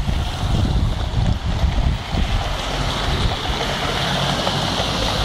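Wind buffeting the microphone over steady traffic rumble, with the hiss of a car's tyres on the wet road growing louder from about three seconds in as it passes close.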